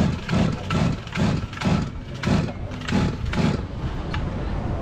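Stihl MS 380 chainsaw's two-stroke engine running, its throttle blipped in quick regular surges about twice a second, then settling back to a steady idle near the end.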